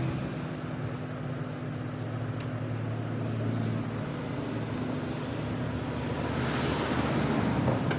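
Steady mechanical background drone with a low hum, swelling and getting hissier for a moment about three-quarters of the way through.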